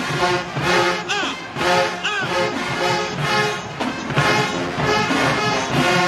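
Marching band brass and drums playing a rhythmic dance tune in short, repeated punchy chords, with a couple of brief rising-and-falling squeals about one and two seconds in.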